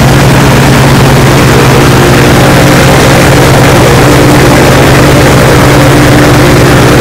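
Viking aircraft engine and propeller running loud and steady at about 2,700 rpm, heard inside the cockpit. It is still running with the lead-acid battery drained to 8 volts, the voltage at which the engine quit in this test.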